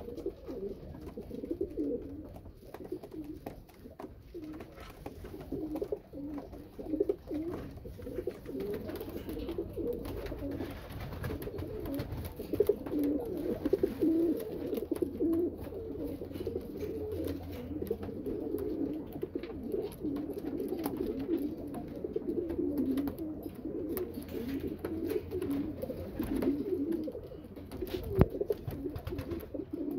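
Several racing pigeons cooing at once, their low, overlapping coos running continuously. There is a single sharp click near the end.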